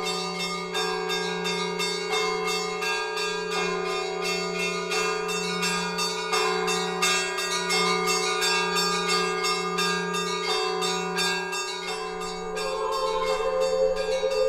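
Church bells ringing in a rapid pattern of strikes over a steady low hum. Near the end, choir voices begin to come in.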